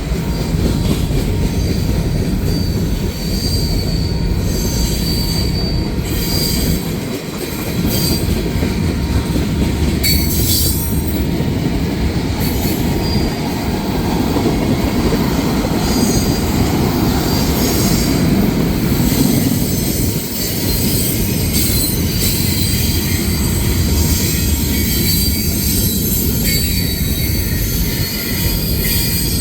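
Manifest freight train rolling past: a steady rumble of the cars on the rails, with high-pitched wheel squeal coming and going.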